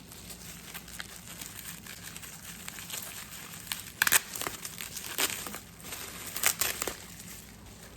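Hands unwrapping a small Christmas ornament from its protective packing, the wrapping crinkling and rustling in fits and starts, with sharper crackles about four seconds in and again between six and seven seconds.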